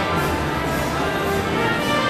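Orchestral music with strings and brass, playing steady held notes.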